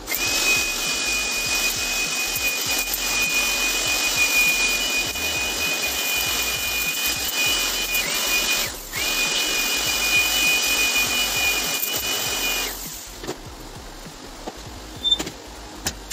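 A handheld electric blower runs with a steady high-pitched motor whine. It is switched off for a moment a little past halfway, the whine dropping in pitch, then spins back up. It is switched off for good about three-quarters of the way through.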